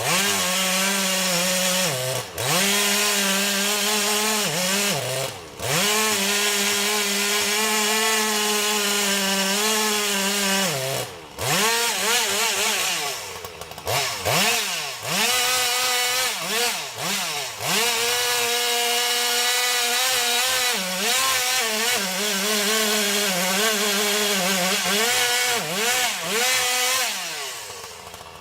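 Two-stroke chainsaw cutting through wood under load, its engine note held high and steady for seconds at a time, then dipping and climbing again repeatedly as the throttle is worked and the chain bogs in the cut.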